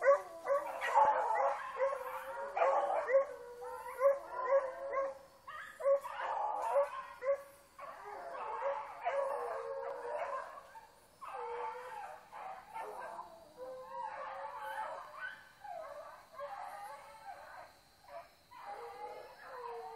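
A pack of hunting hounds baying in several overlapping voices, with drawn-out howling bays and sharper barks, as they follow a fox's trail. The cries are loudest in the first few seconds and a little more spaced out later.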